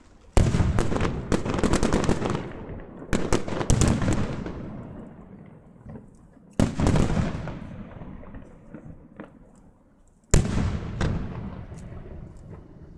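Aerial fireworks bursting: five sharp booms a few seconds apart, each breaking into crackling and then a long fading rumble of echo.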